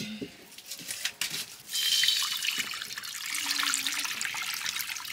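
Water pouring, starting abruptly about a second and a half in after a few light knocks, then running on steadily.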